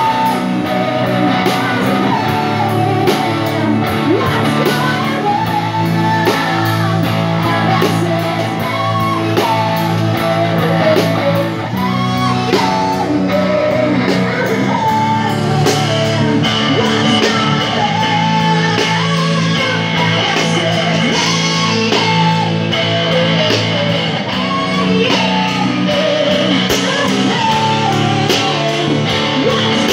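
Live amplified rock band playing: electric guitars and a drum kit, with a sung vocal line over them.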